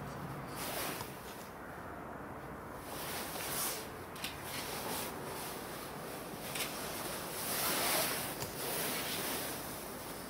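Steady background hiss with several brief, irregular swells of rustling, wind-like noise.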